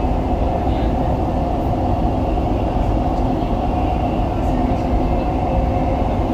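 Dubai Metro train running between stations, heard from inside the passenger car: a steady rumble of wheels on track with a faint steady hum.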